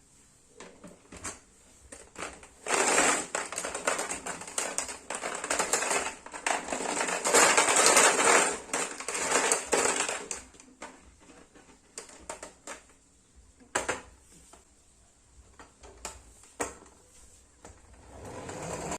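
Marbles rattling and clicking down a wooden marble run. After a few scattered clicks, a dense clatter runs from about three to eleven seconds in, loudest in the middle, then thins to a few single clicks near the end.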